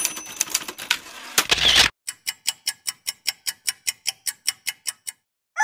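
Typewriter sound effect: keys clacking in a fast run, a short loud rush about a second and a half in, then an even run of about six clacks a second that stops shortly before the end.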